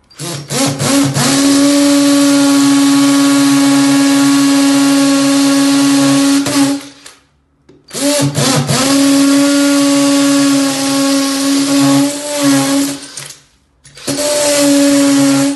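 Cordless drill boring holes into plaster, with a steady motor whine. It runs three times: about seven seconds, then about five seconds, then starts again shortly before the end.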